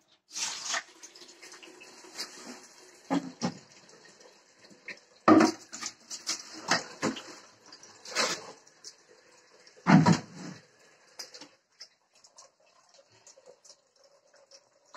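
White plastic buckets being handled, nested and set down, giving irregular hollow knocks and clatter, the loudest about five and ten seconds in. A steady hiss of water running from a tap lies under most of it and stops a little after eleven seconds in.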